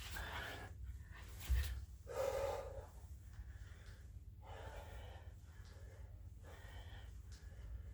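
A man breathing hard through his mouth in loud gasps and exhales while doing burpees, about one breath every second or so. A dull low thump comes about a second and a half in.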